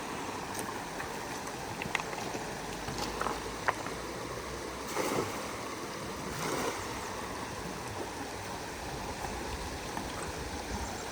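Steady rush of flowing river water, with two short louder swishes about five and six and a half seconds in.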